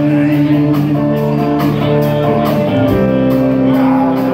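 Live rock band playing an instrumental passage: electric guitars over bass and drums with a steady beat, the chords changing twice.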